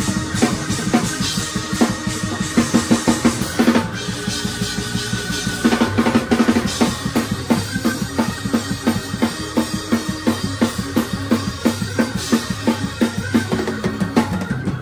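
Music with a prominent drum kit: a steady beat of bass drum, snare and rimshot strokes over pitched instruments.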